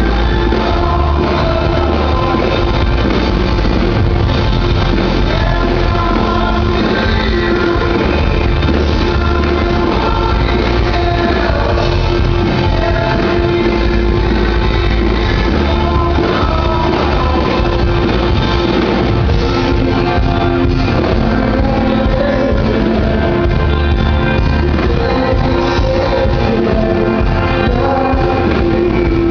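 Live pop-rock band playing: a male lead vocal sung over strummed acoustic guitar and electric guitar, loud and steady, heard from within the audience in a large hall.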